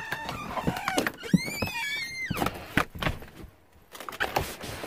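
A door being opened: clicks and knocks from the latch and handle, with a high squeak that rises and falls about a second and a half in.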